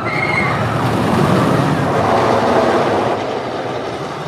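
Train of El Toro, a wooden roller coaster, rumbling along its track with riders aboard. The rumble swells to a peak in the middle and then fades away.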